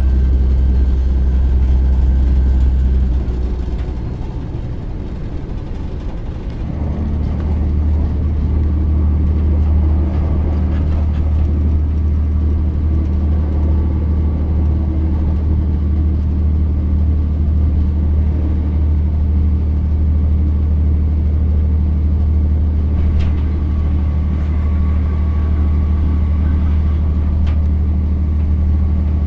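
Class 168 Turbostar diesel multiple unit at speed, heard from inside the passenger cabin: a steady low drone from the underfloor diesel engines and the running gear. The drone dips for a few seconds about three seconds in, then picks up again and holds steady.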